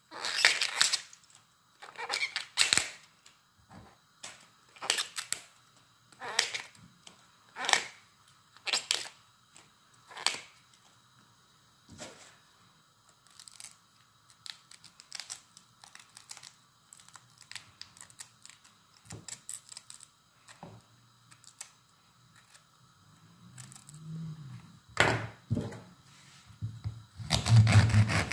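Tough outer leaves of a raw artichoke snapped off by hand, a crisp tearing snap about once a second, then fainter, sparser cuts as the artichoke is trimmed with a small knife. Near the end a large kitchen knife cuts through the artichoke into a wooden cutting board with a few heavier knocks.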